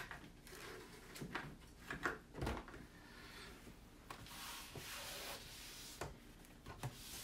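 A few light knocks and handling sounds, then from about four seconds in a steady rubbing hiss as a damp wipe scrubs dried chalk paste off a smooth washable sign board.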